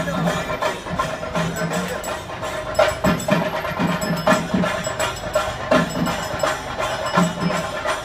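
Percussion-led music: a quick, steady run of sharp strokes over a held tone and lower notes.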